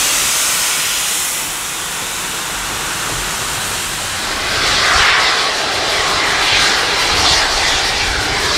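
Steam locomotive letting off steam with a loud, steady rushing hiss. From about halfway through, slow swelling beats come every second or so.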